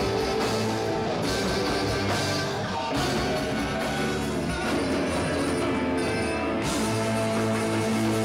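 A band playing rock music, with guitar prominent.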